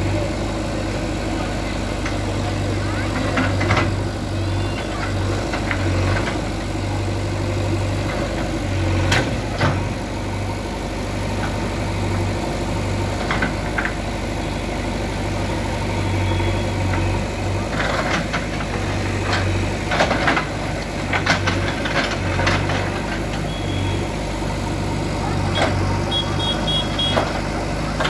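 JCB 3DX backhoe loader's diesel engine running steadily as its backhoe bucket knocks down a brick wall, with repeated clatters and thuds of bricks falling onto the rubble, most frequent in the second half.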